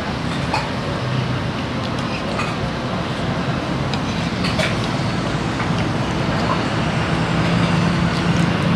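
Steady traffic noise from a busy city road: a continuous rumble and hiss of passing vehicles with a low engine drone, growing slightly louder toward the end.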